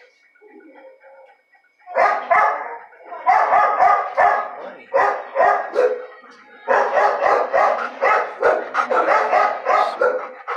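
A dog barking loudly in rapid runs of barks, starting about two seconds in.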